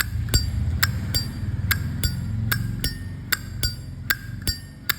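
Zippo lighter lid being flicked open and snapped shut over and over, a string of crisp metallic clicks with a short ringing ping, about two to three a second. The lid's click is a good-sounding one, which collectors judge a Zippo by.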